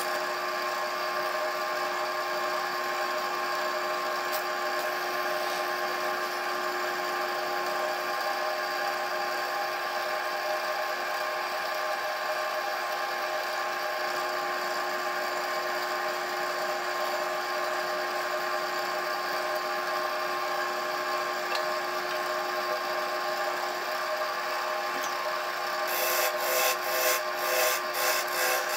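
Wood lathe running steadily with a constant motor hum and whine as a spalted cherry goblet spins on it. About 26 seconds in, a turning tool starts cutting into the spinning wood, adding a pulsing scrape.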